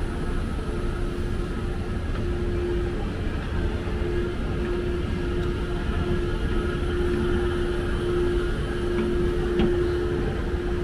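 Escalator running: a steady low rumble with a steady hum that fades in and out, and a faint click near the end.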